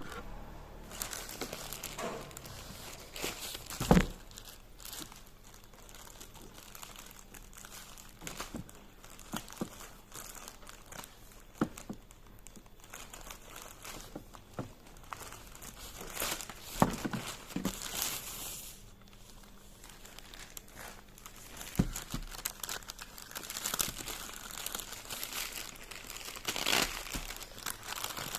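Packaging being crinkled, rustled and torn open by hand to unbox a bag, in irregular bursts with handling knocks; a sharp knock about four seconds in is the loudest sound.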